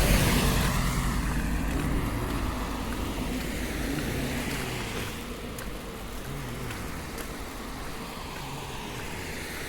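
A car driving past on the street, its tyre and engine noise loudest at the start and fading away over several seconds.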